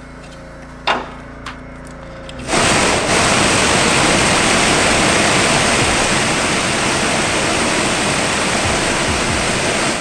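New VDO blower motor with its squirrel-cage fan, test-run off the Blazer's live harness: a sharp click about a second in, then the motor spins up abruptly about two and a half seconds in and runs at speed with a loud, steady rush of air, showing the replacement motor works.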